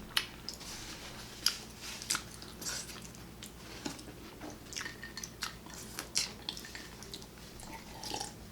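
Close-up chewing and biting of sopes, fried masa cakes with lettuce, onion and salsa toppings, heard as irregular short crunches and mouth clicks.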